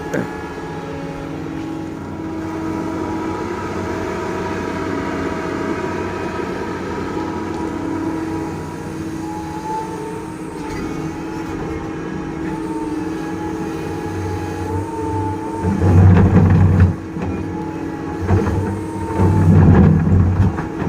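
Doosan DX225LCA excavator's diesel engine running steadily, with a wavering higher whine over it. Near the end it twice surges loudly under load.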